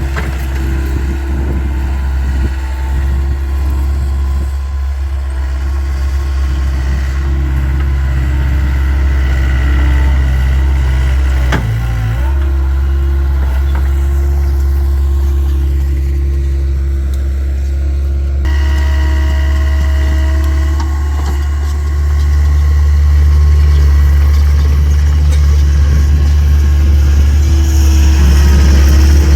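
Takeuchi TL26 skid steer's diesel engine running steadily, a heavy low drone with a thin higher whine over it. There is a single sharp knock about 12 seconds in, and the engine grows louder about three-quarters of the way through.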